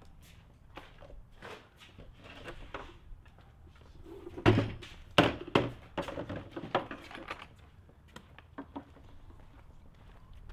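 Knocks and thunks of wooden wardrobe door panels and fittings being handled on a folding table, a run of short knocks with two louder ones about four and a half and five seconds in.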